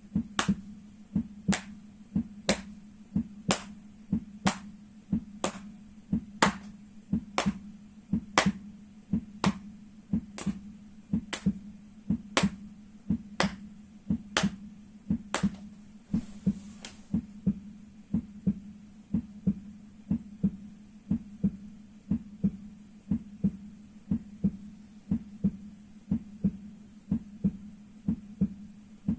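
Feet being struck in a heartbeat rhythm: double thuds like a lub-dub, about one pair a second. Sharp clicks ride on each thud until a little past halfway, then only the dull thuds remain.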